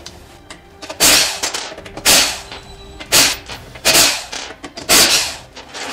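Impact wrench undoing the wheel bolts on a car's rear wheel: five short bursts of hammering, about a second apart, one for each bolt.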